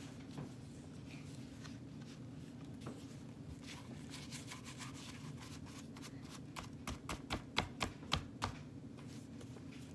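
A series of light, sharp taps and clicks from objects being handled on a tabletop, bunched together about two-thirds of the way in, over a steady low hum.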